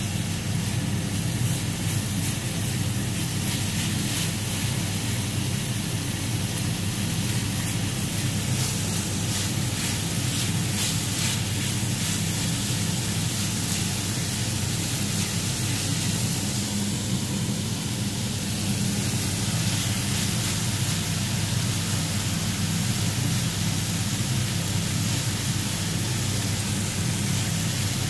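Chicken tocino frying in a nonstick pan: a steady sizzling hiss over a steady low hum.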